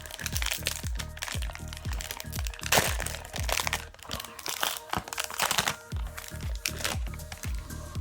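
Foil trading-card pack wrapper crinkling and crackling as it is torn open, loudest about three seconds in and again after five seconds, over background music with a steady beat.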